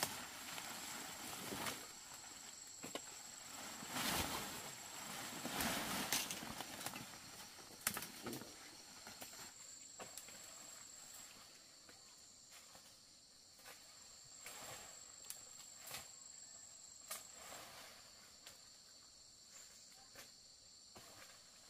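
Steady high-pitched drone of forest insects at several pitches, with scattered clicks and rustling; the rustling is loudest about four to seven seconds in.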